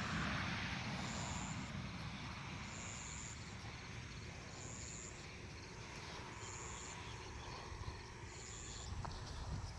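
An insect calling in short high buzzes, one about every two seconds, over a low steady rumble.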